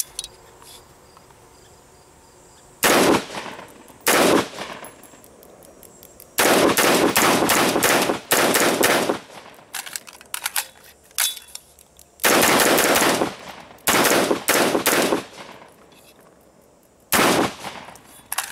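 AR-15 rifle firing 5.56 rounds semi-automatically: two single shots, then fast strings of shots, each with a sharp crack and ringing. About halfway through there is a pause of a few seconds with faint clicks while the coupled magazine is flipped, and then the firing resumes.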